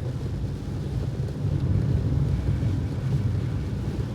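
Steady low rumble of a car driving through strong wind and rain, heard from inside the cabin.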